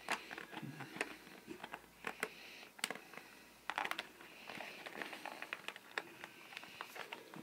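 A small blind-box package being handled and opened by hand: faint crinkling with scattered light clicks and ticks.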